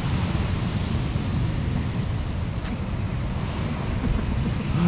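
Steady low outdoor rumble with no speech.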